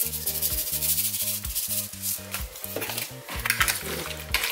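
Fork stirring and scraping raw chicken pieces around a plastic mixing bowl, a rubbing, scraping sound, over background music with held low notes.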